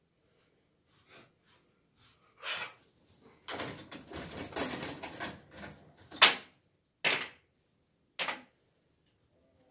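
Scratchy rustling strokes of a grooming brush through a Siberian husky's thick coat, with the dog scuffing about. A few short scrapes come first, then a dense run of strokes from about three to seven seconds in, and two more single scrapes near the end.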